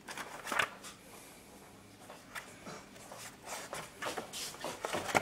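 Paper pages of old ledgers being turned by hand, rustling and flapping in short irregular bursts, the loudest about half a second in.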